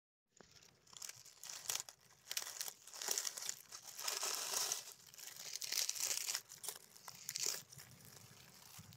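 Dry fallen oak leaves crackling and rustling as fingers brush and lift them aside around a cluster of chanterelle mushrooms, a run of many small crisp crunches.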